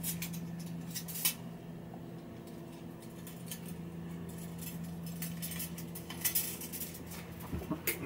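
Steel bicycle spokes ticking and clicking against the hub flange and each other as they are dropped into the front hub's holes during wheel lacing. The clicks are irregular, with a sharper one about a second in and a quick cluster around six seconds.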